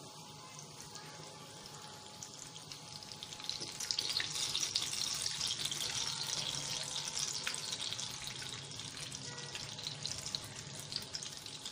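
Chapati-and-potato cutlets shallow-frying in hot oil, a steady sizzle with small crackles that grows louder about four seconds in and eases off near the end.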